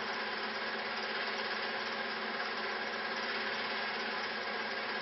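Steady machine whirr with a low hum, from a film projector running.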